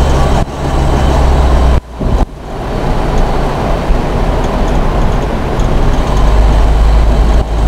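Steady rumble of a car being driven, engine and road noise heard from inside the cabin, strongest at the low end. The sound briefly drops out twice about two seconds in.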